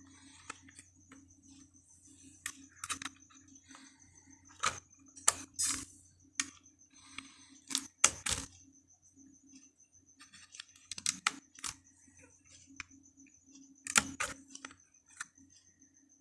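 Sharp plastic clicks and short rattles of desktop computer hardware being handled, as a RAM module and its slot latches are worked by hand, coming in irregular clusters with the loudest clicks about five, eight and fourteen seconds in.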